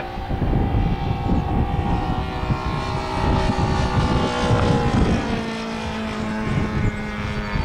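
52cc Taurus two-stroke gas engine of a radio-control Extra 330L in flight, its pitch rising and falling with throttle. The pilot hears a flaw in the mid-range and puts it down to a rich carburettor that needs the low end leaned.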